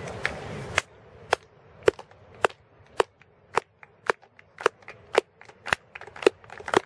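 Slow, even rhythmic clapping, about two sharp claps a second. These are spectators clapping in time as the shot putter settles in the circle before his throw.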